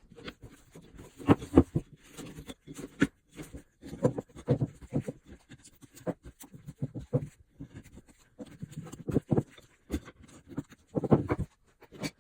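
Irregular scraping and rubbing strokes with sharp knocks, from hand work on an old rusty axe.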